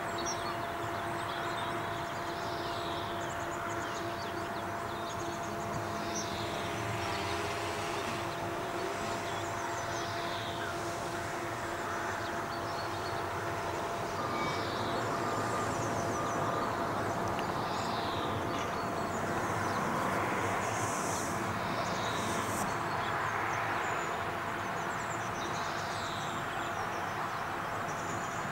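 Outdoor ambience: a steady distant rumble with a constant low hum, and small birds chirping now and then.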